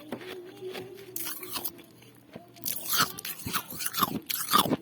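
Refrozen shaved ice being bitten and chewed close to the microphone: a run of crisp crunches that come thicker and louder in the second half.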